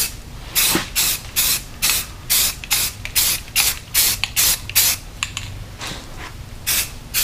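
Aerosol spray-paint can giving short, rapid hissing bursts, about two or three a second, misting on a light coat of paint. It pauses about five seconds in, then sprays twice more near the end.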